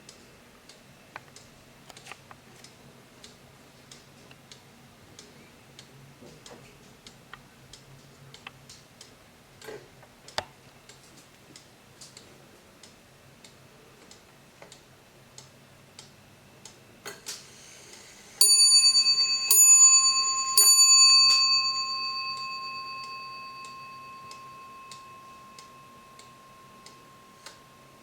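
Warmink wall clock ticking steadily, then, after a brief mechanical whirr, striking its brass bell three times about a second apart; the bell's ring fades slowly while the ticking carries on.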